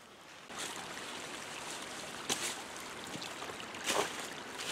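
A shallow woodland creek running over rocks and leaves, with footsteps in the streambed; the two loudest steps come about two and four seconds in.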